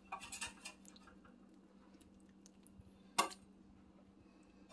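Spatula scraping and knocking in a skillet of thick curry sauce: a short run of scrapes at the start and one sharp knock about three seconds in. A faint steady hum runs underneath.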